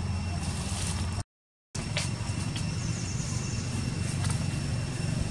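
Steady low rumble with a faint, steady high whine above it. The sound drops out to total silence for about half a second a little after a second in.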